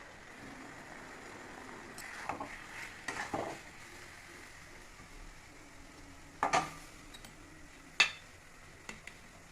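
Cooking sounds: metal utensils and pots clinking and scraping over a low steady hiss, with a few scattered knocks and one sharp clank about eight seconds in.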